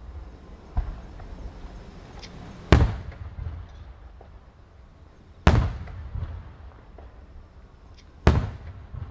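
Aerial firework shells bursting: three loud booms spaced about three seconds apart, each echoing away, with a smaller crack about a second in and a few faint pops between.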